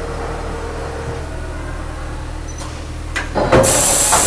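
Mori Seiki SV-500/40 vertical machining center's side-mount tool changer swapping a tool: a few mechanical clunks, then a loud hiss of compressed air starting about three and a half seconds in as the spindle lets go of the tool, over the machine's steady hum.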